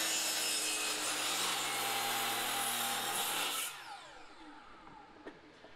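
DeWalt miter saw running and cutting through a cedar board. About three and a half seconds in, the motor is switched off and the blade spins down with a falling whine.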